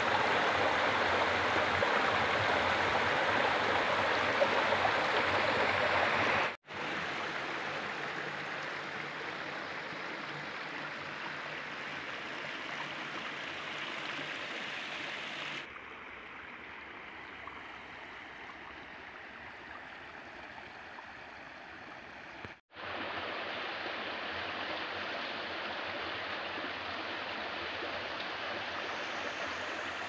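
Water rushing out through the openings of a stone culvert, then a shallow stream flowing over a sandy bed, as a steady rushing and splashing. The sound cuts off and changes level three times, loudest at the start.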